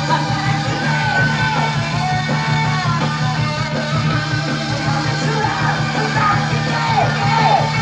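A 1970s hard rock band playing loud, with a singer yelling and singing over the band. Near the end comes a run of short, repeated falling notes.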